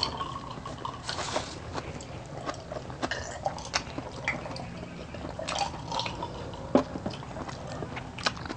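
Close-miked mukbang eating and drinking sounds: gulps of soft drink from a glass mug and wet mouth and hand sounds, with scattered short clicks and taps. A louder click comes about seven seconds in.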